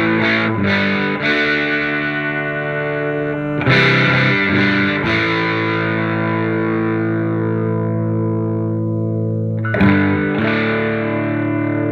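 Electric guitar (a Gibson Les Paul '59 reissue with Seymour Duncan pickups) played through a hand-wired Marshall JTM45 Plexi clone head with KT66 power tubes and a 1x12 cabinet: about six overdriven chords, each struck and left to ring for one to several seconds. The high treble channel's volume is being turned up as it plays, which makes the tone brighter without making it louder.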